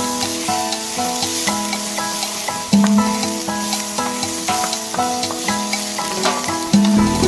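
Food sizzling and crackling in a hot frying pan, over background instrumental music of plucked notes.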